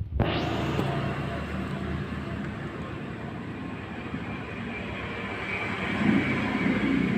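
Steady mechanical running noise with a low hum, growing louder about six seconds in.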